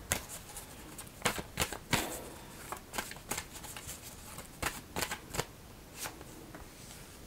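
Goddess Oracle deck cards being shuffled and handled: about a dozen short, sharp card snaps and flicks at irregular intervals.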